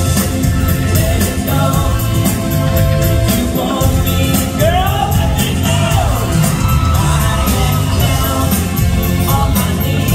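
Live amplified pop band with electric guitar and a horn section of trumpet, trombone and saxophone over a steady beat, with a male voice singing sliding notes about halfway through.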